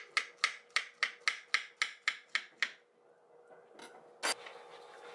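Kitchen knife slicing a banana on a wooden cutting board: a quick, even run of about ten crisp chops, roughly four a second, that stops near three seconds in. A single louder knock follows about four seconds in.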